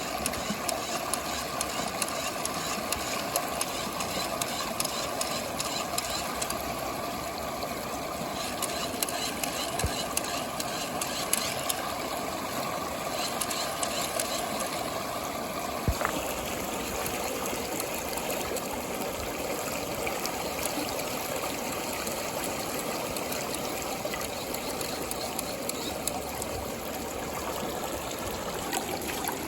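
Water swirling and bubbling steadily in a plastic tube as a whirlpool vortex, with a couple of sharp clicks along the way.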